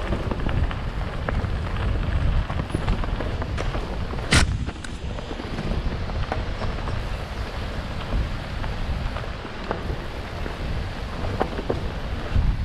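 Mountain bike rolling fast down a dirt forest trail, heard from the rider's own camera: wind rumbling on the microphone, tyre noise and the chain and frame rattling in quick clicks over bumps, with one sharp knock about four seconds in.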